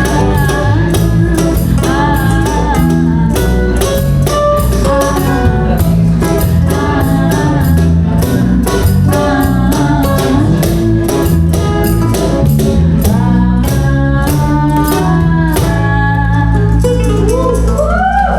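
A song performed with singing over guitar and a steady percussion beat.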